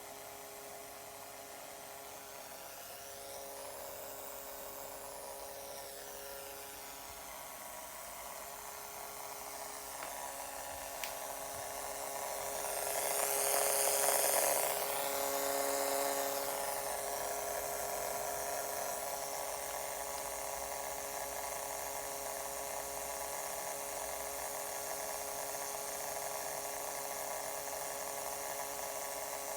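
Electronic buzzing and whine from an Acer Predator G9-593 laptop's internal speakers. Several steady tones sit over a hiss. The buzz grows louder toward the middle, where its pitch wavers up and down, then settles back. It comes from interference from the heated motherboard, which the owner guesses comes from the southbridge or parts near it.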